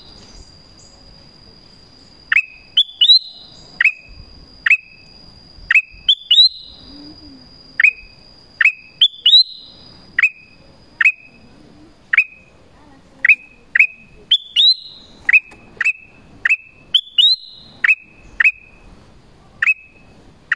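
Black-crested bulbul calling: loud, short, sharp notes that slide down in pitch, repeated about once or twice a second and often run together in quick pairs or threes.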